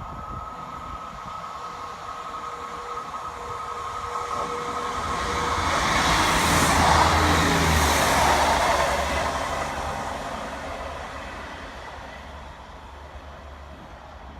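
A train passing through the station: it approaches with a faint steady whine, grows loudest about halfway through, then fades as it moves away.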